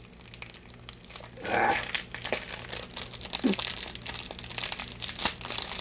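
Crinkling and rustling of the mini donuts' packaging being opened by hand, with many small crackles, starting about a second and a half in and going on unevenly.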